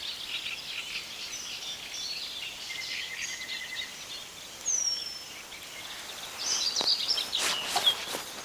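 Several wild birds singing around a marsh, many short chirps and a brief trill, with one clear falling whistle about halfway. Near the end, rustling and a few short knocks join in.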